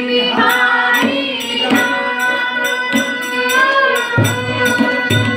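A group of women singing a Hindi Krishna bhajan together, kept in time by a steady beat of hand claps, about three to four a second.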